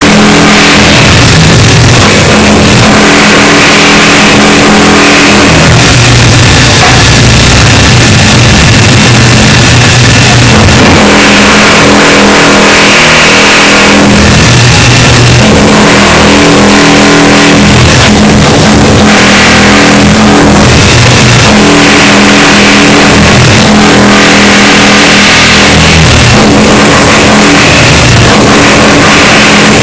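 Construction noise boosted until it clips and distorts, with a motorised machine running in spurts of a few seconds and its pitch rising and falling.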